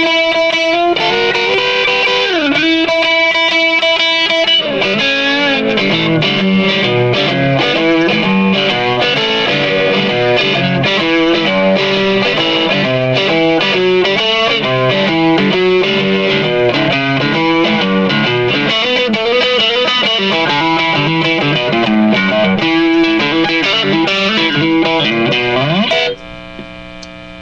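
Electric guitar played through a Fender Vibro Champ XD 5-watt tube amp on its crunchy tweed vintage voicing, overdriven by a Tube Screamer pedal: distorted lead playing with held notes and quick runs. The playing stops about a second before the end, leaving the amp's mains hum.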